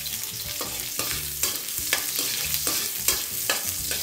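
Cubed potatoes and chopped garlic sizzling in hot oil in a wok, while a metal spatula stirs and scrapes against the pan about two to three strokes a second.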